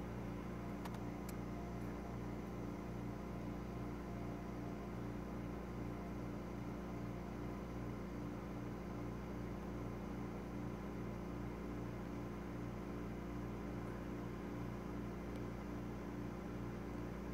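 Steady low machine hum, with a couple of faint ticks about a second in.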